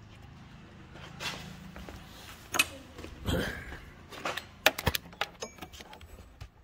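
Scattered light clicks and knocks, with a quick run of sharp clicks about two-thirds of the way through, over a faint low hum in the first half.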